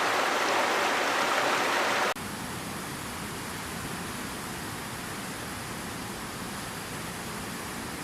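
Rushing water of a stream or waterfall, a loud steady rush that cuts abruptly about two seconds in to a quieter, deeper and more even rush of water.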